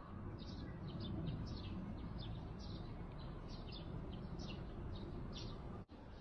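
Small birds chirping over and over, short high chirps several times a second, over a steady low outdoor rumble. The sound drops out for an instant near the end.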